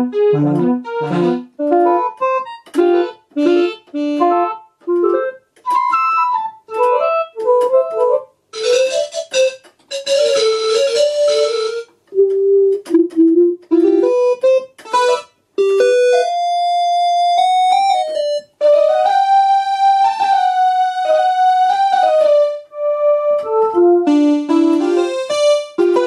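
Casio CTK-541 electronic keyboard playing short phrases of notes while being switched through its built-in tones: synth brass, synth lead and synth pad voices. Quick runs of notes in the first few seconds, a hissy noise-like voice around ten seconds in, and longer held notes stepping in pitch in the second half.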